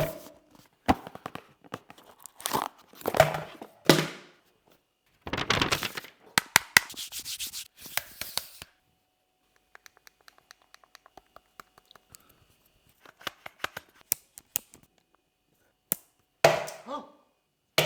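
Product packaging being torn open and handled: irregular tearing and rubbing bursts with many small clicks, sparse through the middle and busier again near the end.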